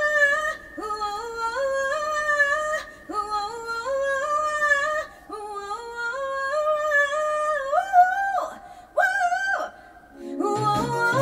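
A woman singing unaccompanied: short phrases of notes climbing step by step, four times over, then two brief higher held notes near the end.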